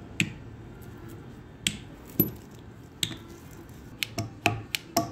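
Sharp metallic clicks and clacks from the paper cup machine's knurling unit as its cover is fitted and its steel parts are handled. A few single clicks are spaced out, then a quicker run of them comes near the end as the unit is worked by hand, a check that it still moves freely with the cover on.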